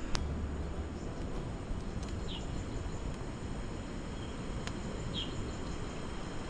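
Forest ambience with a steady high insect drone. There is one sharp click just after the start and two short high chirps about three seconds apart.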